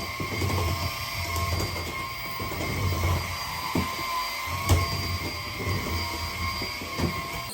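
Lydsto H4 cordless vacuum cleaner running with a steady high motor whine, over an uneven low rumble.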